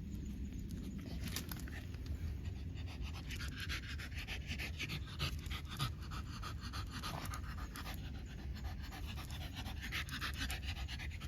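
Shiba Inu panting rapidly in a quick, even rhythm, steady throughout with a couple of stronger stretches.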